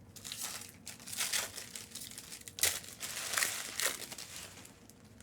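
Crinkling and tearing of plastic wrapping, as trading-card packs are handled and ripped open, in irregular bursts that fade near the end.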